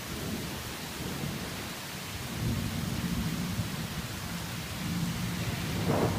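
Heavy rain falling steadily, with a low rumble of thunder that builds about two seconds in and swells near the end.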